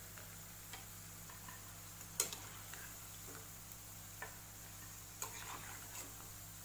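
A metal spoon knocking and scraping against a steel kadhai as fried balls are scooped out of the oil: a few separate sharp clicks, the loudest about two seconds in, over a faint low hum.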